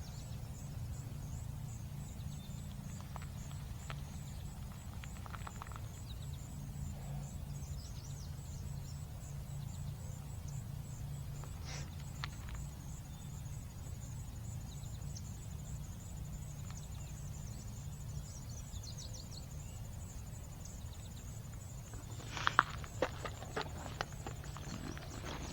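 Footsteps of hikers walking a trail over a steady low rumble, with a few sharp knocks near the end.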